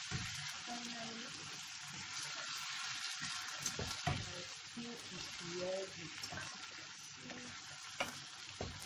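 Tomato-based chicken stew sizzling in a large nonstick pan as a spoon stirs it, with steady hissing and scraping. A few sharp knocks of the spoon against the pan, about halfway through and near the end.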